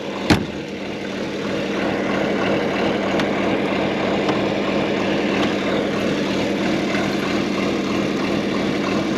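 Diesel engine of farm harvest machinery running steadily with a constant hum. A single sharp click comes about a third of a second in.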